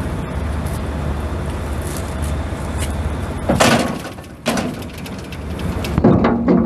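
Low, steady idle of the box truck's International DT466 turbo diesel, broken about halfway through and again near the end by loud bangs and rattles like a truck door being worked.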